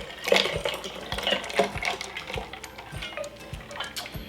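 Ice water being poured into a borosilicate glass iced tea maker, with ice clinking against the glass, over background music with a steady low beat.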